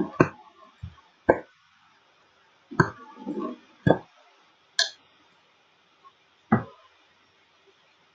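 Computer mouse clicks picked up close to the microphone: about seven sharp clicks and knocks at uneven intervals, one of them a duller thud, with a brief rustle around three seconds in, while files are clicked and multi-selected.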